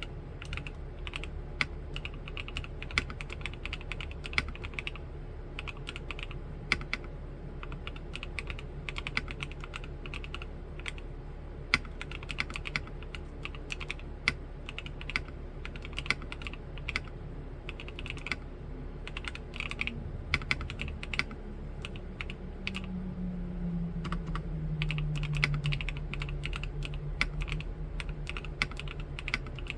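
Steady, fast typing on an Omnitype BAUER LITE mechanical keyboard with Gateron Snow Rabbit switches in a clacky plastic case, with a few louder key strokes. A low hum slides down in pitch through the second half.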